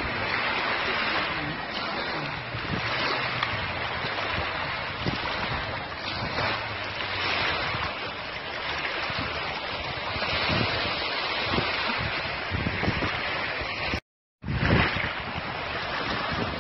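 Wind buffeting the microphone over small waves lapping in shallow water at the shore. The sound cuts out completely for a moment about fourteen seconds in, then comes back with a brief louder gust.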